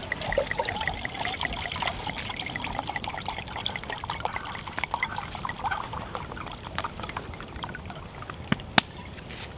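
Liquid poured from a bottle into a metal camping mug, a steady trickling glug, over a campfire crackling. A sharp click near the end.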